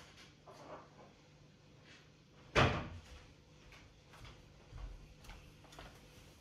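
A single sharp knock about two and a half seconds in, with faint small clicks and handling noises around it.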